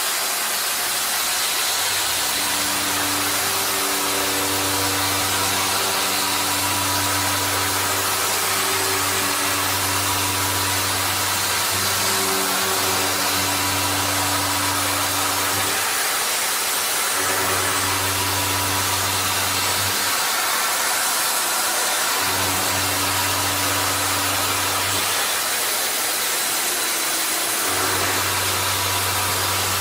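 Industrial machinery running: a constant hiss with a low, steady hum that cuts in and out several times.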